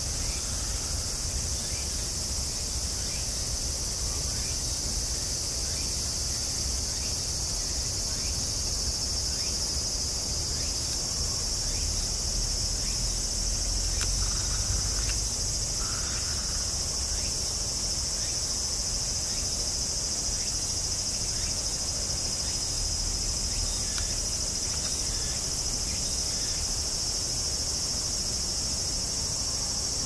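Steady high-pitched insect chorus that runs unbroken, with a low rumble of wind underneath.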